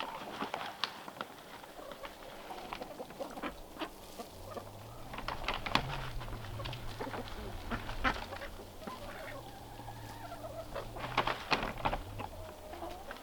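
Ducks quacking in many short calls, with the busiest bursts about five seconds in and again near the end.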